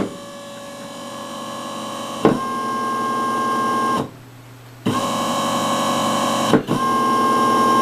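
DC gear motor driven through a BTS7960 H-bridge driver, its speed set by a potentiometer, running with a steady whine that grows louder as the speed is turned up. It stops about four seconds in, starts again about a second later, and hitches briefly twice.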